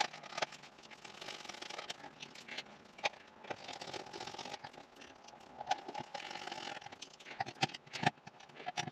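Small screws being driven by hand into the plastic housing of a steering angle sensor: irregular light clicks, taps and short scrapes of the screwdriver and parts, over a faint steady hum.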